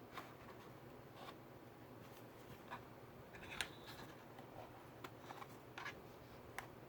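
Faint, scattered small clicks and taps of hands handling a laptop and its parts, with one sharper click about halfway through.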